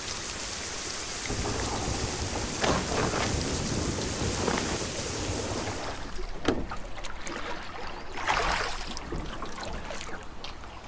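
Steady heavy rain with thunder rumbling and swelling under it; the rain stops about six seconds in, and a few sharp knocks and a short noisy burst follow.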